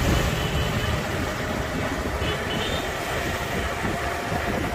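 Motorbike riding along the road: a steady engine and road noise with low wind rumble buffeting the microphone.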